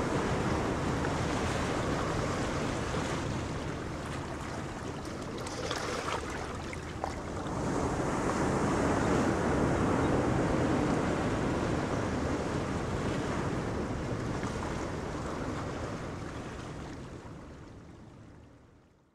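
Wind buffeting the microphone over rushing water and the wash of a small fishing boat's wake as it speeds past; the sound fades out near the end.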